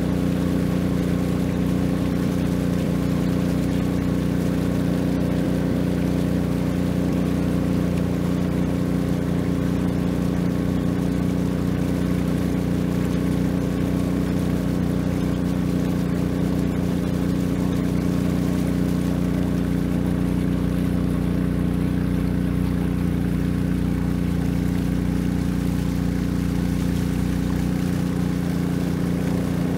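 Long-tail boat's engine running steadily at cruising speed, an even droning pitch that does not change, with faint water hiss underneath.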